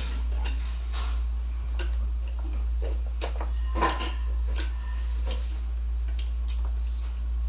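Light, irregular clicks and taps of small plastic toy pieces being handled and set in place in a plastic Barbie toy airplane, with one sharper knock nearly four seconds in, over a steady low hum.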